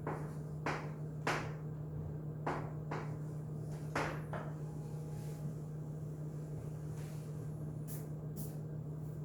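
Scattered short, sharp knocks and clicks, about seven in the first half and two close together near the end, over a steady low hum.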